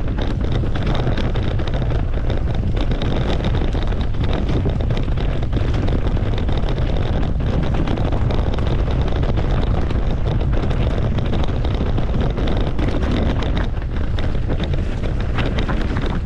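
Wind buffeting an action camera's microphone on a mountain bike descending a dirt trail, with the tyres rolling over dry leaves, dirt and stones and a constant run of small knocks and rattles from the bike.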